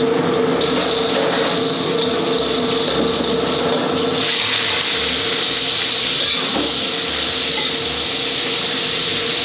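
Hot oil sizzling in a steel wok as garlic, chilies and coriander roots fry; the sizzle grows louder about four seconds in as raw pork belly goes into the pan. A steady hum runs underneath.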